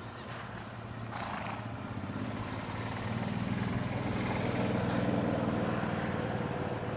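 An engine running with a steady low drone that swells louder about two to three seconds in.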